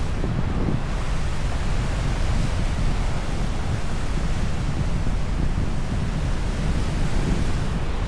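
Ocean surf washing steadily on the shore, with wind buffeting the microphone in low rumbles.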